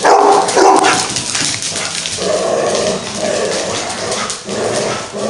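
A dog barking loudly twice in quick succession, then giving a run of longer, drawn-out calls. Faint clicks and scuffs come from dogs scrambling on a rubber-matted floor.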